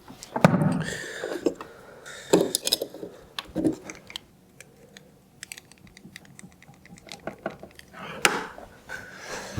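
Irregular light clicks and taps of small hard parts being handled by hand, with a few louder short knocks among them.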